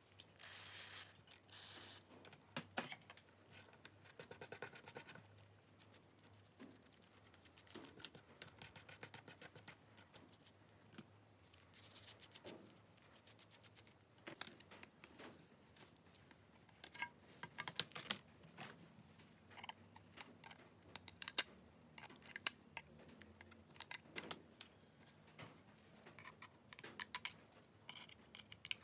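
Small clicks, taps and scrapes of phone parts and metal tweezers being handled during a phone teardown, with several runs of quick clicking.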